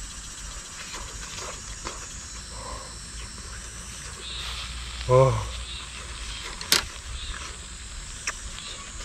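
Steady high-pitched drone of cicadas. About five seconds in a person gives a short vocal exclamation, and a sharp click follows near seven seconds.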